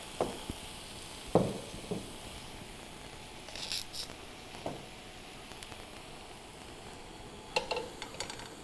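Tofu frying in a stainless steel pan with a faint steady sizzle, broken by a few knocks and clinks as a glass bowl and the pan are set down, and a quick run of utensil clicks against the pan near the end as it is stirred.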